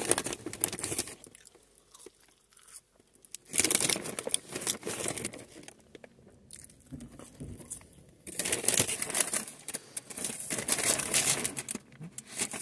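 Paper takeaway packaging crinkling and rustling in three bursts with quiet gaps between, along with crunchy chewing as skin-on fries are eaten.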